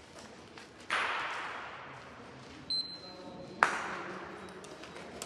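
Two sharp clacks of gateball play, the mallet striking a ball, each ringing on in a large hall. The second, about three and a half seconds in, is the louder.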